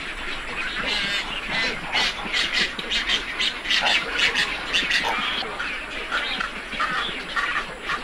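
A flock of egrets calling: many short calls in quick succession, overlapping, busiest and loudest in the middle.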